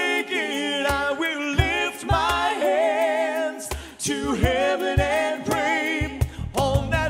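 Male lead vocalist singing with female backing singers in a mostly a cappella passage of a gospel pop song, under low thumps at irregular intervals. Near the end a bass line comes back in under the voices.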